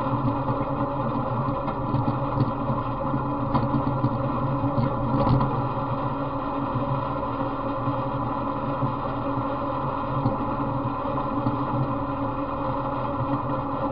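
Off-road riding mower's engine running steadily while the mower drives along a trail, with a few sharp clicks between about two and five seconds in.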